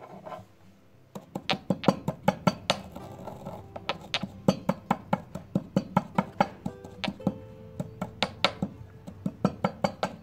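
White stone pestle pounding seeds in a stone mortar, sharp knocks at about three a second starting about a second in, over quiet background music.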